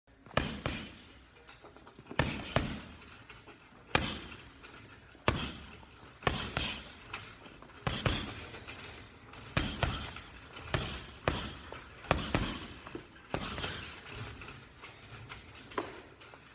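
Boxing gloves punching a hanging heavy bag: sharp thuds, a single punch or a quick two-punch combination every second or two, with the bag rattling on its chain.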